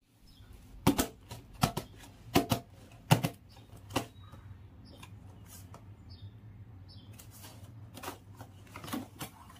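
A cardboard box being handled and turned over by hand: about five sharp knocks and taps on the cardboard in the first four seconds, then softer scrapes and ticks near the end.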